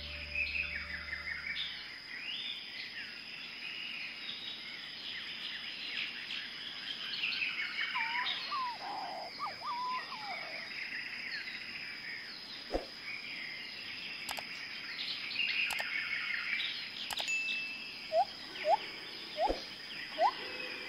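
Small birds chirping and twittering in a busy background chorus. Near the end comes a louder run of short, rising whistled calls, a few to the second.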